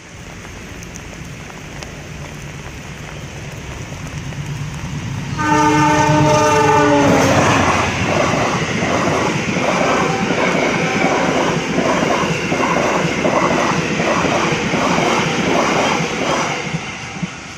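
Indonesian KAI diesel locomotive drawing closer, its low rumble growing louder, then sounding one loud multi-tone horn blast of about two seconds. Its passenger coaches then pass close by with a steady rushing noise and a regular clickety-clack of wheels over rail joints.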